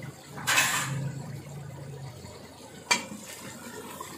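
Wooden spoon stirring thick kofta curry in an aluminium pot: a short scraping swish about half a second in, then a single sharp knock of the spoon against the pot near three seconds.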